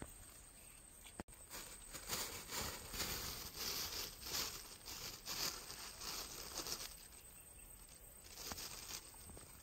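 A plastic bag crinkling and rustling as it is handled, in a run of quick rustles that starts just after a second in and eases off about seven seconds in.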